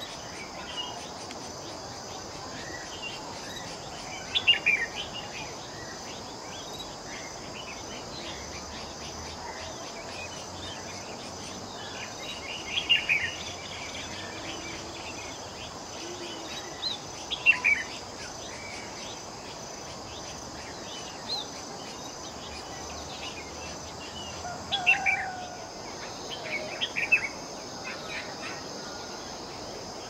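Short bursts of rapid bird call notes, about five of them spread through, over a steady high-pitched drone of insects.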